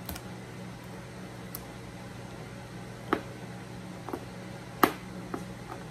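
A shipping package being opened and handled: scattered sharp clicks and taps, the loudest just under five seconds in, over a steady low hum.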